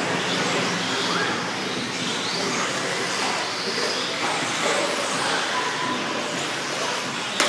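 Several 1/10-scale electric 4WD RC buggies racing on a dirt track: short high motor whines rise and fall as they accelerate and slow, over a steady dense noise.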